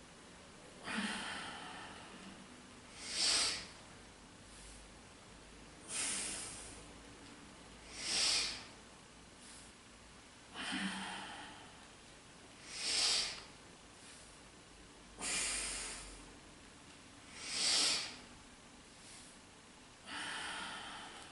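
A woman breathing deeply and slowly through the nose during a yoga exercise, long inhales and exhales alternating evenly, about one every two and a half seconds.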